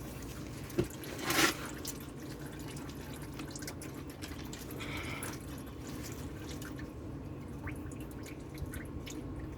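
Engine oil draining from a 2012 Porsche Boxster S's sump into a drain pan, a steady trickling and dripping of liquid. A brief louder noise about a second and a half in.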